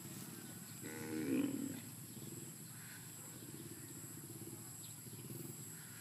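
A water buffalo moos once, a single low call lasting about a second, starting about a second in.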